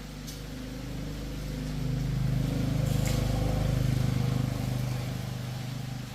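Motorcycle engine running with an even pulse, growing louder to a peak about four seconds in and then fading.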